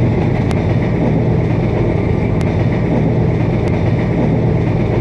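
ZCU-20 diesel-electric locomotive engine running with a steady, even hum as the train rolls through the yard, with a few faint clicks.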